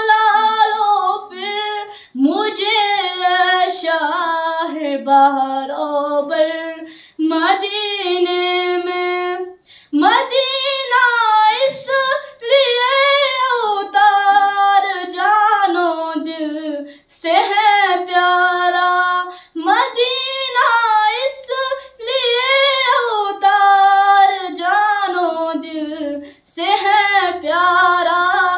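A girl singing an Urdu naat, a devotional song in praise of the Prophet, unaccompanied into a microphone. She sings long drawn-out phrases that bend in pitch, with short pauses for breath between them.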